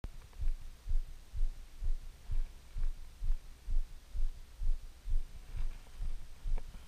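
Footsteps walking through grass, heard as steady dull low thumps about twice a second, with a faint swish of grass near the end.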